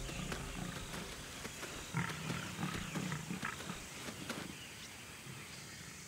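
Lions growling low and quietly, a few short growls between about two and three and a half seconds in.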